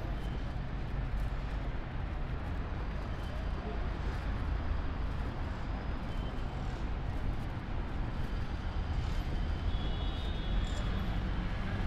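Steady street traffic noise from passing cars.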